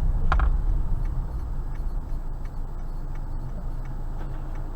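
Low rumble of the car's engine and tyres heard inside the cabin, getting quieter over the first two seconds and then holding steady. A brief higher sound comes just after the start.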